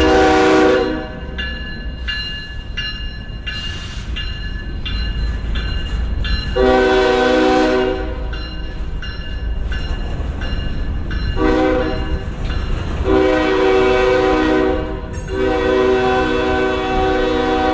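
Diesel locomotive air horn sounding a series of blasts over the low rumble of a GE ES40DC's diesel engine. One blast ends about a second in, then come blasts at about seven, eleven and thirteen seconds, and a last long one held from about fifteen seconds.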